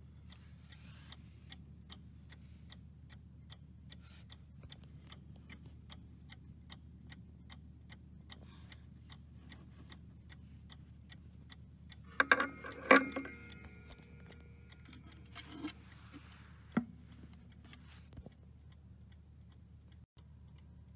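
Howard Miller Webster mantel clock's movement ticking steadily. About twelve seconds in, a few sharp knocks set several metallic tones ringing briefly, like the chime rods being touched, followed by two lighter clicks.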